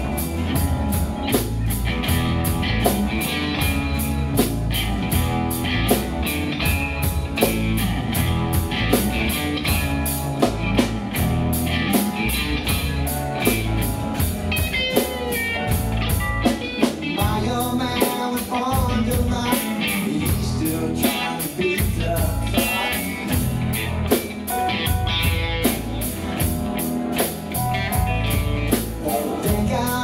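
Live band playing blues-rock with electric guitar and drum kit, over a steady cymbal beat.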